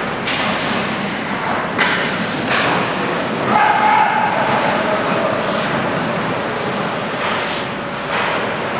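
Ice hockey play in an echoing indoor rink: a steady hiss of skates scraping on the ice and hall noise. A sharp click comes about three and a half seconds in, followed by a brief voice.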